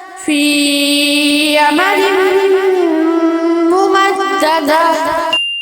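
A voice chanting Quran recitation in a melodic style, holding long drawn-out notes that bend slowly in pitch. It cuts off suddenly near the end, and a bell-like ding begins just as it stops.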